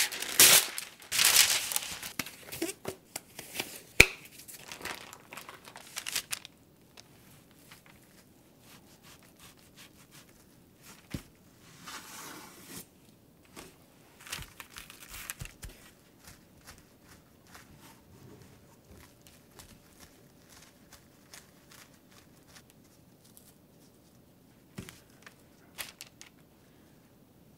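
A sheet of parchment paper pulled out of its box and torn off, loud crinkling with a sharp click about four seconds in. After that, only faint rustles as gloved hands peel apart raw bacon slices.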